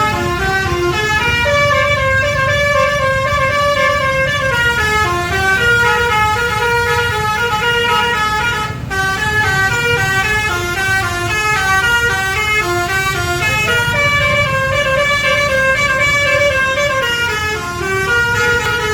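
Basuri 'telolet' musical bus horn playing a tune of stepped notes without a break. A long held note opens the phrase and the same phrase comes round again about two-thirds of the way through, over a low rumble.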